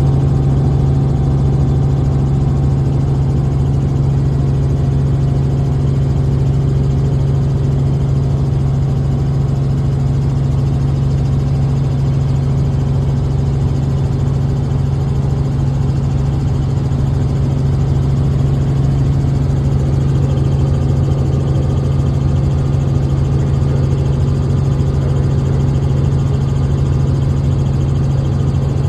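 Helicopter engine and rotor noise heard from inside the cabin: a loud, steady drone dominated by a strong low hum.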